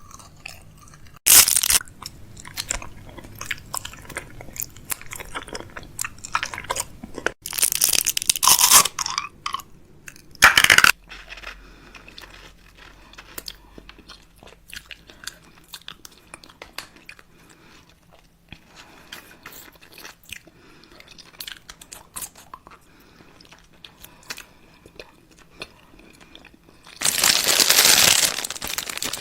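Close-up crunchy chewing: many small crackling clicks, broken by a few louder rustling bursts, the longest near the end.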